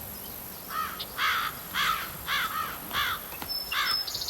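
A bird calling in a series of short, arching notes, about two a second, with a thin high chirping near the end.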